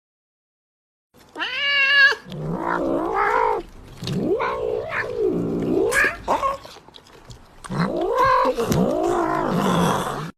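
Domestic cats caterwauling: long, wavering yowls that rise and fall in pitch, starting about a second in and running on with only brief breaks.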